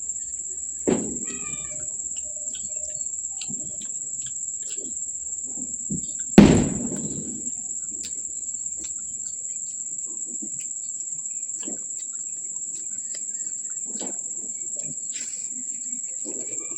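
Close-up eating sounds, chewing with small mouth and utensil clicks, over a steady high-pitched drone of crickets. There is a sharp knock about a second in and a louder one about six and a half seconds in.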